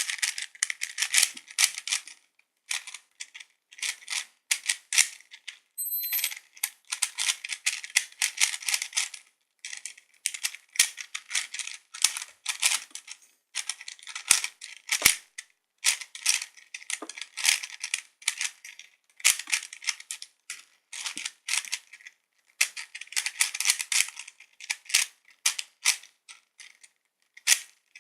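Plastic Void Cube puzzle being turned fast in a timed solve: rapid clicking and clacking of the layers in flurries of a few seconds, broken by short pauses.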